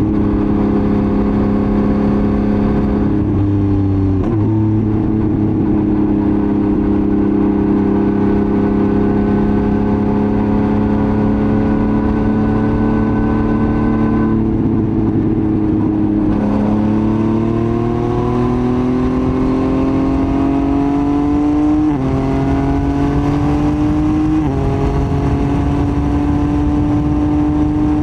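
Yamaha MT-09's CP3 three-cylinder engine running through a Roadsitalia titanium full exhaust while riding, its pitch slowly climbing under throttle. The note drops back twice, near the start and about halfway, and steps up abruptly twice near the end, as with gear changes.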